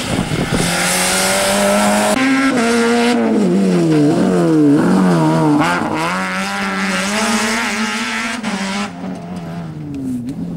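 Rally car engine at high revs on a tarmac stage. The pitch steps up about two seconds in, then dips and jumps back several times in quick succession as the driver brakes and downshifts for a corner. The engine then pulls away and its pitch falls near the end as the car passes.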